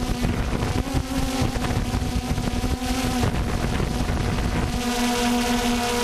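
DJI Phantom 2 quadcopter hovering, its motors and propellers giving a steady pitched hum, with wind buffeting the microphone. Near the end the wind rumble eases and the hum steadies.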